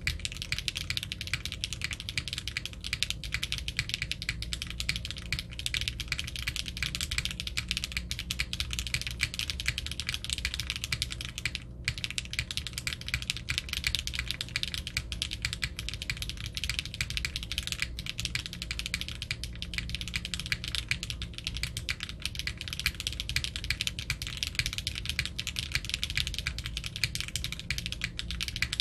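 Fast, continuous typing on a Unikorn R2.2 custom mechanical keyboard with stock HMX Emo switches, a polypropylene plate and GMK keycaps: a dense stream of rapid key clacks, which the builder calls rounded in tone. There is one brief break a little before halfway.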